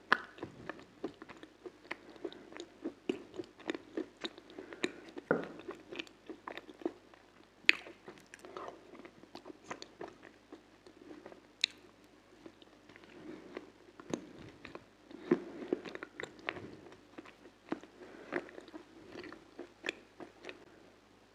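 A person eating a hard, crunchy treat close to the microphone: many sharp crunching bites at irregular intervals, with chewing in between.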